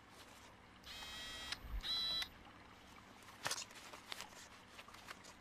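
Two short, flat electronic beeps about a second in, the second one higher and shorter, followed by a few faint clicks.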